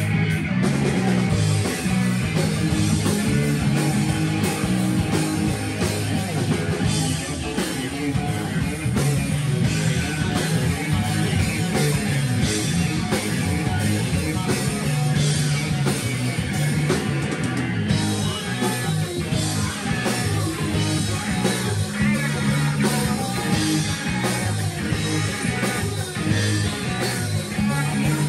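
Rock band playing live: guitar over a steady drum beat.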